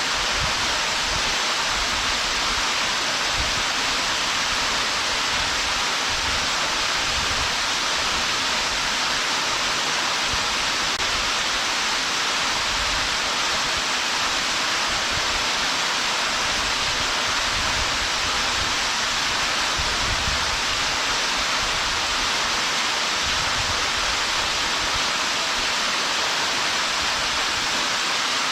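Waterfall pouring steadily: an unbroken rush of falling water, with an uneven low rumble underneath.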